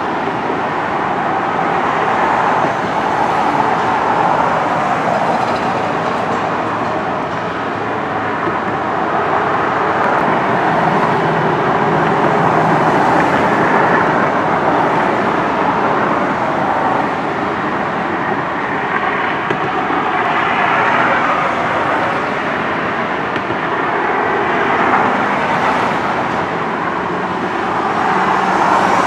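Steady vehicle noise, like traffic, that slowly swells and eases with no distinct impacts.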